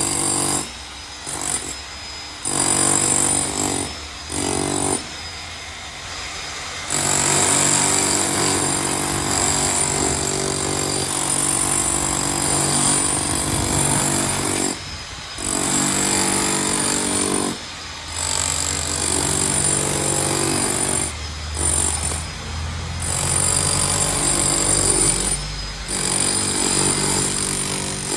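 A jackhammer-type power hammer running in long runs on masonry, stopping briefly and starting again several times.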